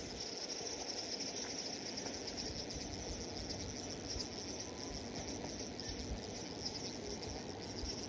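Insects trilling in a steady, high-pitched chorus over a low outdoor background hiss.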